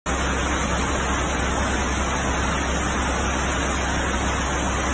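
Floodwater rushing in waves down a city street: a loud, steady, unbroken rushing noise that starts abruptly at the very beginning.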